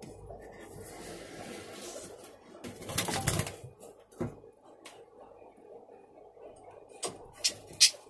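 A budgie's wings flapping as a hand grabs it: soft rustling, then a loud flurry of wingbeats about three seconds in and a shorter one a second later. A few sharp knocks follow near the end.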